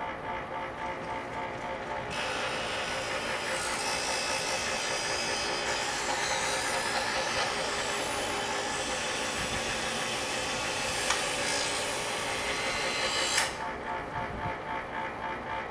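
Chef's Choice EdgeSelect electric knife sharpener running with a steady motor hum. From about two seconds in, a knife blade is drawn through its abrasive wheels with a grinding hiss. The hiss stops about two seconds before the end while the motor keeps humming.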